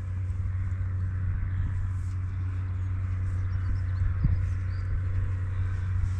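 Steady low rumble of open-air ambience, with a few faint high chirps above it.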